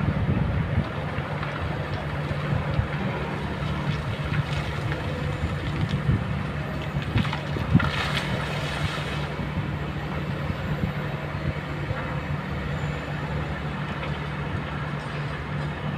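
Diesel engines of Kobelco hydraulic excavators running steadily, with scattered knocks of rock on rock. About seven to nine seconds in comes a rush and clatter of stones tipped out of an excavator bucket.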